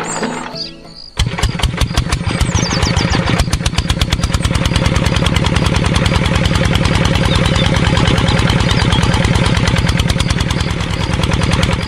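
Small tractor engine starting about a second in and then running steadily with a rapid, even chug.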